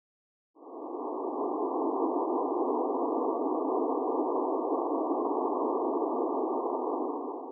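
Steady electronic drone, a dense hiss-like tone held in a narrow middle band, starting suddenly about half a second in and cutting off at the end.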